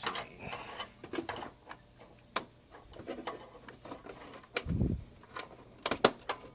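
Irregular plastic clicks, taps and rattles of power-supply cables and connectors being worked by hand inside a PC case, as a stubborn connector is pushed into place. A dull thump about five seconds in.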